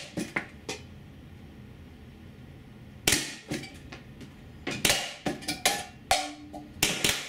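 Tiberius T8.1 .68-calibre CO2 paintball pistol firing rubber balls at a hanging tin can: one sharp shot about three seconds in, then a quick string of several more over the next two seconds. The struck can clanks and rattles on its clip.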